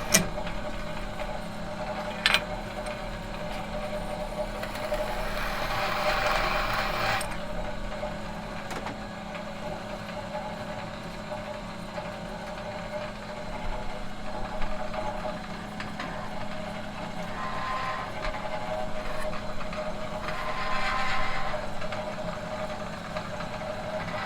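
Metal workshop machine humming steadily, with two sharp clicks in the first few seconds and swells of rushing noise over the hum, one of which cuts off suddenly about seven seconds in.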